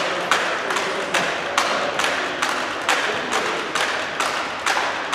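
Spectators clapping in a steady rhythm, about two and a half claps a second, echoing in a large sports hall.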